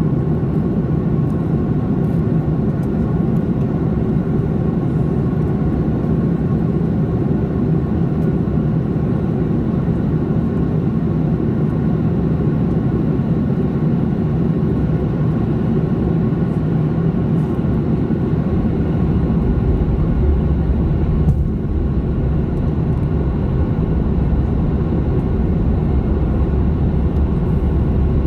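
Steady cabin noise inside an Airbus A330-300 on descent: a low rumble of engines and airflow with a faint steady hum above it. The low rumble swells about twenty seconds in, with one short knock a second later.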